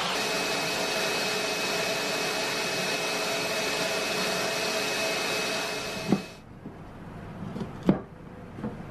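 Table saw running steadily with a high whine, stopping about six seconds in. A few sharp knocks follow, the loudest near the end.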